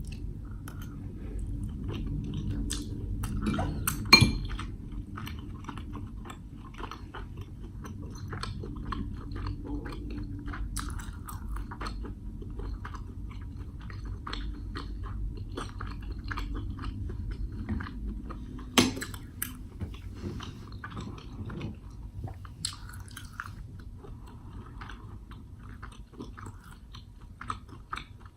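Close-miked chewing and biting of food: a steady run of small mouth clicks, with two sharper clicks about four seconds in and near the middle.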